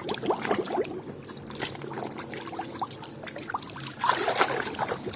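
Water trickling and splashing as a toy cement-mixer truck is washed, with irregular small clicks and a louder stretch of splashing about four seconds in.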